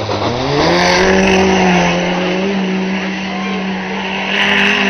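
Small banger race car engines passing close, revving up sharply at the start and then held at high revs, with patches of hiss about a second in and again near the end.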